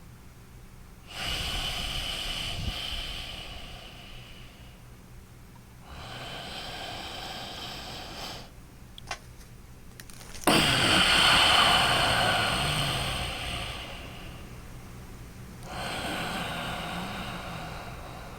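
A man breathing loudly and deliberately in and out through his nose as a relaxation breathing exercise: four long breaths with short pauses between them. The third, about ten seconds in, starts suddenly and is the loudest.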